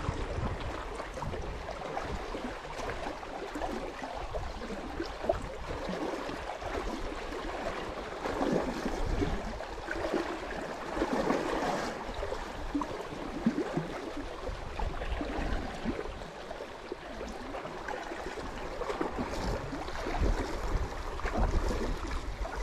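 Sea water sloshing and splashing against the rocks of the shore: an irregular wash that swells and ebbs.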